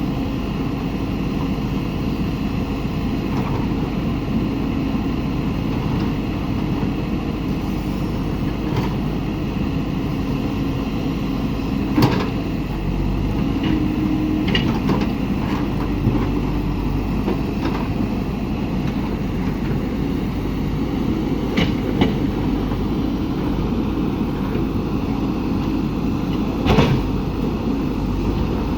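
JCB backhoe loader's diesel engine running steadily under work, with a few sharp metallic knocks from the working bucket and linkage, the loudest near the end.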